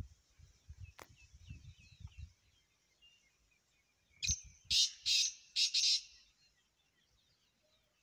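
Black francolin calling: a loud, rasping run of about five notes starting about four seconds in.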